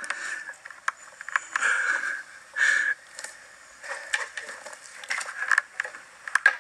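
Irregular rustling and scraping with many sharp clicks and cracks: someone moving through dry forest litter and brush with an elk antler rack in hand. The louder rustling bursts come right at the start, around two seconds in and just before three seconds.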